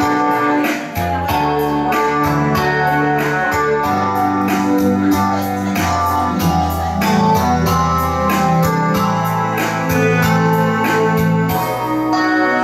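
Instrumental song introduction: plucked guitar and electronic keyboard over held bass notes and a steady beat of about three strokes a second, with no voice.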